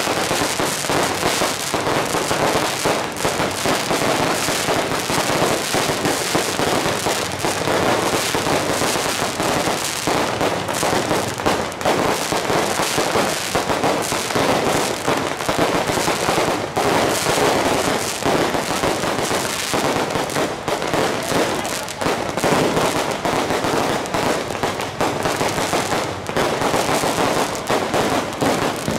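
Firecrackers going off on the street in a dense, unbroken crackle of rapid bangs, with aerial fireworks bursting overhead. The loudness stays steady throughout.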